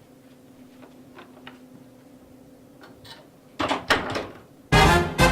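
A few soft clicks and knocks over a faint steady hum, with louder knocks about three and a half seconds in, then loud music with a heavy, regular beat starts near the end.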